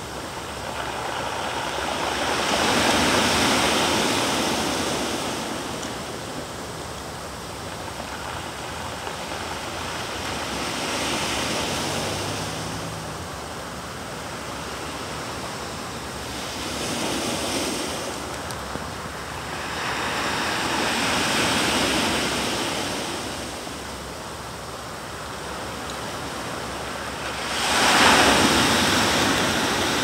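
Sea waves breaking and washing up a pebble beach. The surf swells and fades in about five surges, and the loudest comes near the end.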